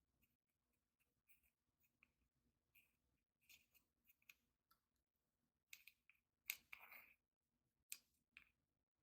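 Faint, irregular small clicks and crackles of slime and makeup being worked by hand, with a brief louder cluster of crackles about six to seven seconds in.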